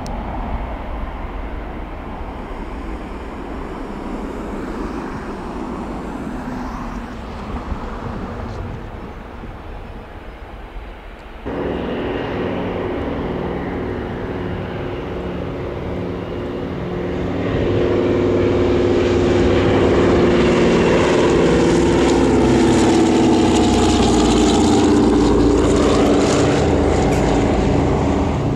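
Engines of a passing airplane, first faint under wind noise, then after an abrupt change a steady engine drone that grows much louder about two-thirds of the way through as the aircraft comes close.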